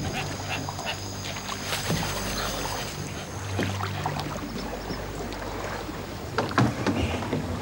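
Small aluminium boat being poled through flooded swamp forest: water sloshing and scattered knocks on the hull, with a few louder knocks near the end, over a low steady hum.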